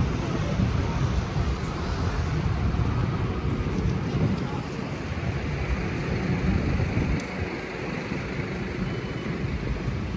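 City street ambience: steady road-traffic noise with a low rumble.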